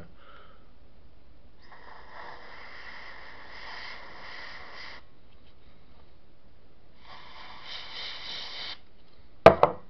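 A person's long breathy exhalation, about three seconds, then a second shorter one, followed near the end by a single sharp knock.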